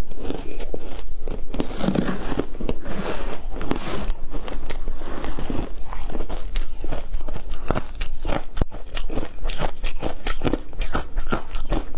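Ice chunks coated in matcha powder being bitten and crunched in the mouth: many quick, irregular crisp cracks of breaking ice.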